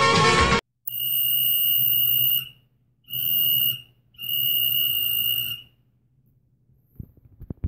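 Intro music cuts off about half a second in, followed by a referee's whistle blown three times: a long blast, a short one, then another long one. A few faint low thumps near the end.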